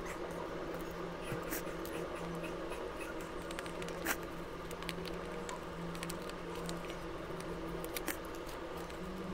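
Small paper cut-outs being handled and pressed onto a drawing sheet: soft paper crinkles and scattered light taps, the sharpest about four and eight seconds in, over a steady low hum.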